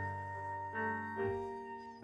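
Instrumental background music with sustained keyboard-like notes that change pitch about twice.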